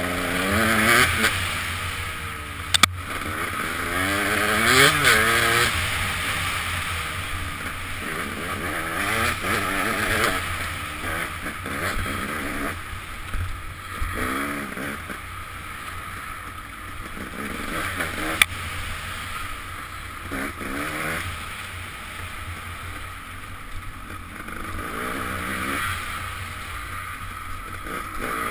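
KTM dirt bike engine heard from the rider's helmet camera, revving up and dropping back again and again as the rider accelerates and shifts along the trail, with wind rushing over the microphone. Two sharp knocks stand out, about three seconds in and again about eighteen seconds in.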